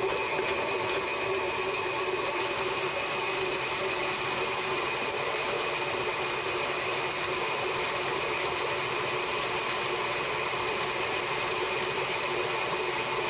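KitchenAid stand mixers running steadily, their motors giving a constant high whine over the churn of beaters creaming butter in metal bowls.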